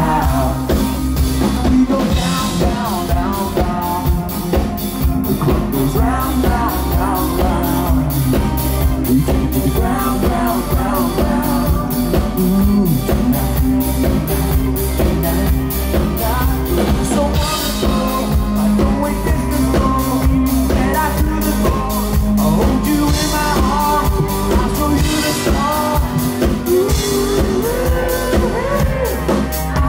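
Live country-rock band playing at full volume: a steady drum-kit beat under electric and acoustic guitars, with a man singing over it at times.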